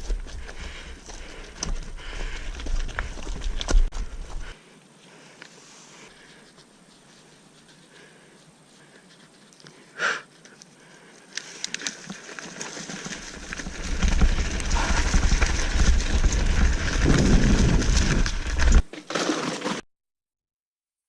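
Mountain bike riding on a dirt trail, heard through an action camera: tyre noise, rattles and clicks from the bike, and wind rumble on the microphone. It quietens for several seconds, with a short high tone about ten seconds in, then grows loud again before cutting off to silence near the end.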